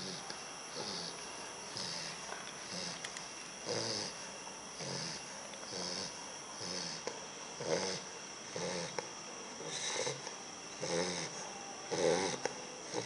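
Bulldog puppy snoring in its sleep: a steady run of short, rattly snores about once a second, one with each breath.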